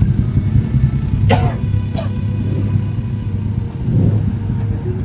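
A person coughs about a second in, with a shorter second cough soon after, over a steady low rumble.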